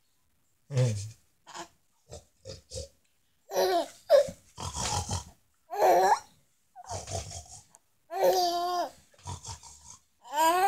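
A young baby laughing and squealing in short, high, wavering bursts, with brief breathy giggles between them.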